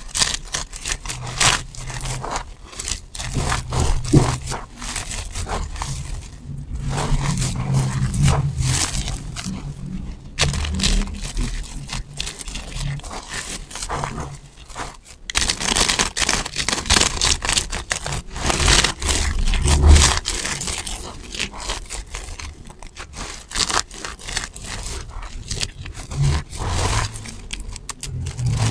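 Hands crushing and rubbing a heap of dry, brittle soap shavings: a dense, crisp crunching and crackling of many small clicks, busiest in the middle stretch.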